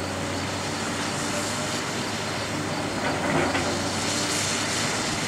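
Link-Belt 210 excavator's diesel engine running steadily while its arm works the demolition rubble, with clattering and crunching of broken wood and debris that swells about three seconds in, over a hiss of water spray laid on to keep the dust down.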